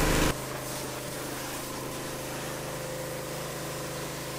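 Pressure washer running steadily: an even motor hum with a faint hiss over it.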